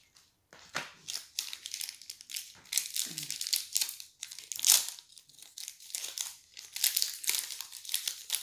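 Chocolate-bar wrapper crinkling and tearing as it is peeled open by hand, in irregular rustles, loudest about halfway through.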